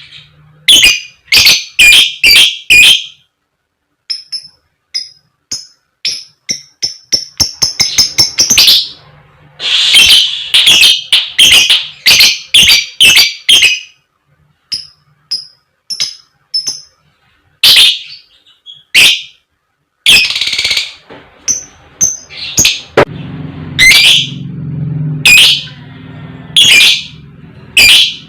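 Lovebird giving loud, harsh 'koek koek' calls and sharp 'cik cik' chirps in bursts with pauses between, including a quick run of short chirps about six seconds in.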